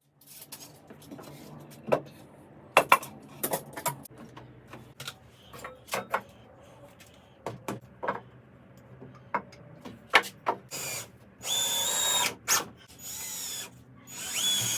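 Cordless drill driving screws into wood: three runs of its whine in the last few seconds, the last one rising in pitch. Before that come scattered sharp knocks and clatter of wood and tools being handled.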